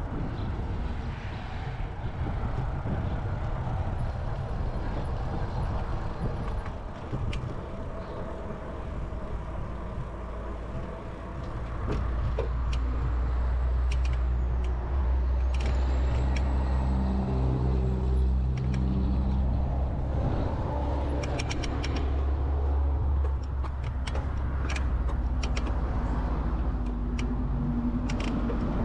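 Steady rumble of wind and tyre noise from riding an e-bike along a paved pathway. It gets louder about halfway through, with scattered rattles and clicks near the end.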